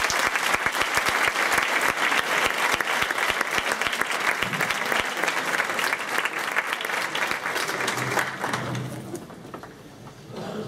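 Audience applauding, a dense clatter of clapping that thins out and dies away about eight or nine seconds in.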